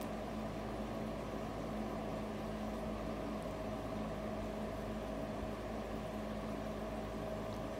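Steady machine hum: a constant low drone with a couple of unchanging tones over a soft hiss, with no change or break.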